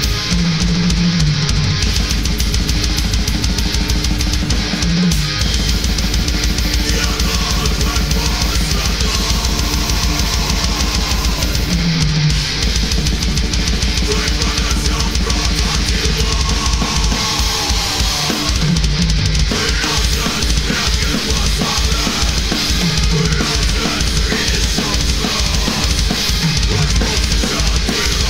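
Gretsch drum kit played live in a heavy-metal style: fast, dense bass-drum strokes under snare and cymbals. Sustained pitched backing music with guitar-like bends runs underneath.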